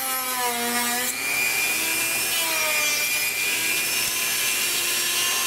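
Dremel rotary tool with a diamond cutting blade cutting through soft balsa wood: a steady motor whine over the rasp of the blade in the wood, the whine sliding lower in pitch during the first second, then holding steady.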